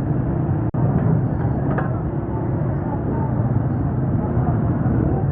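Busy street ambience: a steady rumble of traffic mixed with indistinct voices. The sound drops out for an instant just under a second in.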